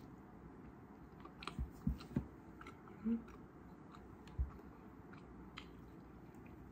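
Close-up mouth sounds of a person chewing dry chocolate pound cake: small moist clicks, a few soft thumps, and a short throaty gulp about three seconds in as the cake sticks in the throat.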